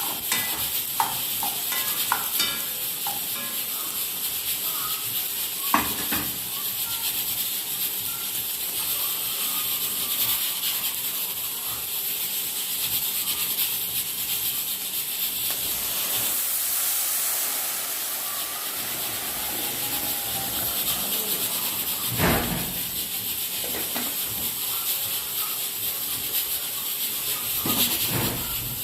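A steady hiss with a few scattered light knocks and clinks, one louder knock near the end.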